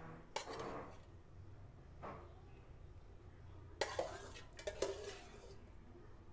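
Tableware clinking: utensils knocking against dishes in several separate sharp clinks, a few seconds apart and then closer together.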